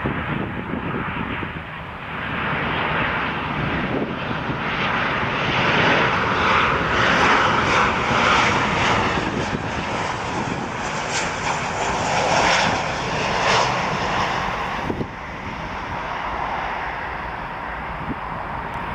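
Jet engines of a United Airlines Boeing 737-900 passing by, a rushing roar that builds, is loudest in the middle and drops away sharply about fifteen seconds in.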